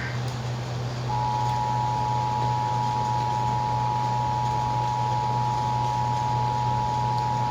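Emergency Alert System two-tone attention signal: two steady tones sounding together start about a second in and hold. A constant low hum runs underneath. The tone announces the tornado warning that follows.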